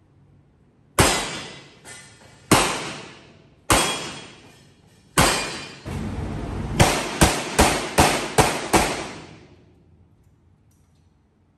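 Revolver gunfire echoing in a covered range bay: four single shots a second or more apart, then a quick string of six shots, each under half a second after the last.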